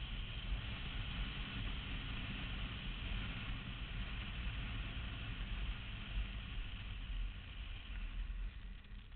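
Wind rushing over a motorcycle-mounted microphone behind the windscreen, with the bike's engine running underneath as it rides along the road; a steady low rumble and hiss that dies down near the end.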